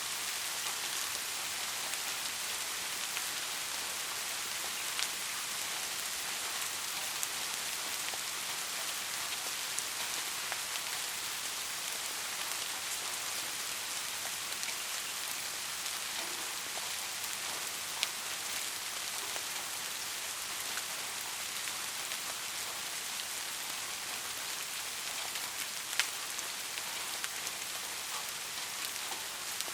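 Steady rain hissing, with a few sharper single drop ticks, the clearest about 18 and 26 seconds in.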